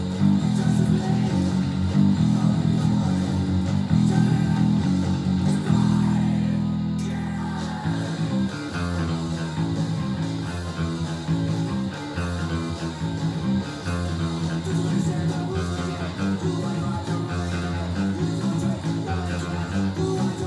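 Punk rock music led by a Squier electric bass playing a fast, driving line of low notes. About six seconds in, one note is held and left to ring for a couple of seconds, then the fast line resumes.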